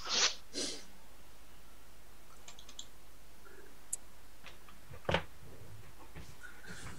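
Faint, scattered clicks and one short knock about five seconds in, over a steady low hum and hiss of call audio.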